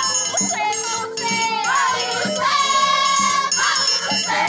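A group of voices singing a song over a steady beat, with shakers or rattles jingling in time.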